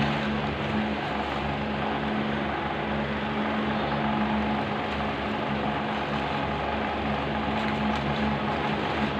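Steady motor hum over a constant rushing noise, with a couple of faint clicks near the end.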